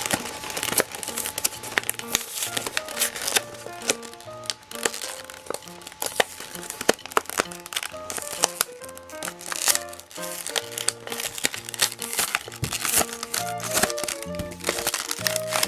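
Plastic toy packaging crinkling and crackling in irregular bursts as it is opened by hand, over light background music.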